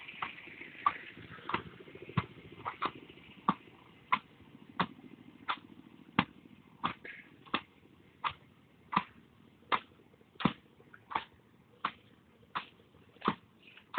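Evenly spaced knocks, about three every two seconds, steady throughout.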